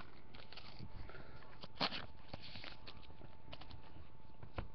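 Faint handling sounds of trading cards and a card box being moved by hand: scattered light taps and rustles, with one sharper click about two seconds in.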